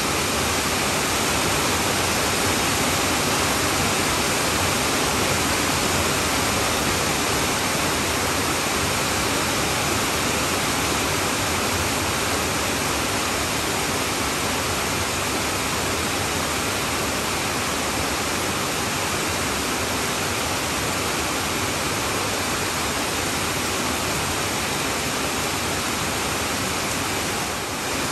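Heavy rain falling on a tin roof: a dense, steady hiss with no let-up.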